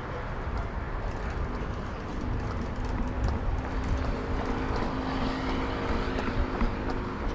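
Street traffic: a motor vehicle's engine hum comes in about a second and a half in, holds a steady pitch, and fades near the end, over a low traffic rumble.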